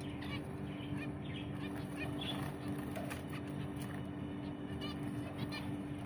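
Zebra finches giving short nasal beeping calls, several scattered through, over a steady low hum.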